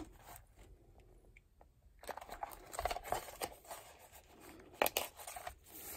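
Paper rustling and crinkling as hands open a paper envelope in a handmade junk journal. The rustling starts about two seconds in, with a sharper crinkle near the end.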